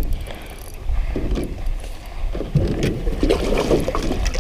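Wind rumbling on the microphone, with irregular water splashes and knocks from a hooked bass being played and brought to the side of the boat for netting.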